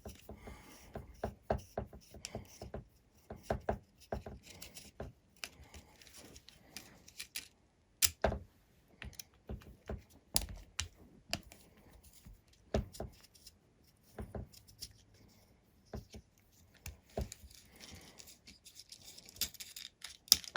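Scattered clicks, taps and small rattles of hand tools and small parts being handled while a hexacopter frame is taken apart, with a few sharper knocks, about eight and ten seconds in and again near the end.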